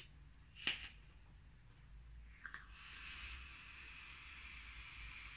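Long draw on an electronic cigarette with a single-coil atomiser: a short click, then a steady airy hiss of air pulled through the atomiser for about three seconds.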